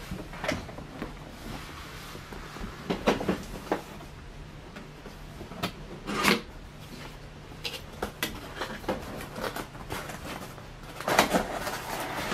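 Cardboard packaging being opened and handled: scattered rustles, scrapes and light knocks, with a louder run of rustling near the end.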